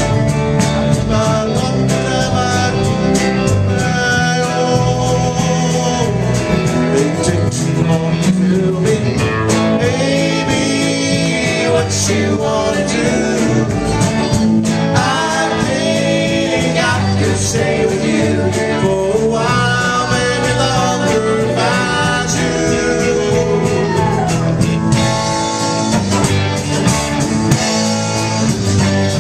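Live band playing a song loudly: drums on a Premier kit with strummed acoustic guitar and electric guitars.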